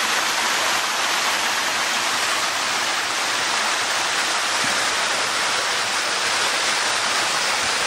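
Rocky mountain stream cascading over small waterfalls: a steady, even rush of water.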